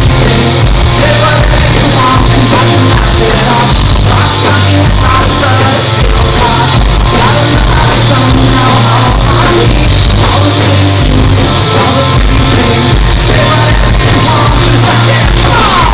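Live rock band playing loud and steady, with electric guitar, bass guitar, drums and a sung lead vocal, heard from the audience floor.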